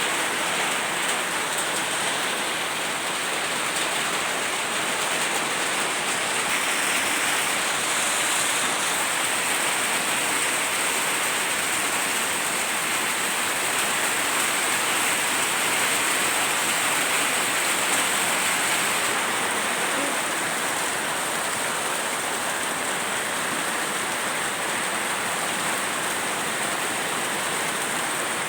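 Steady heavy rain falling and splashing on surfaces.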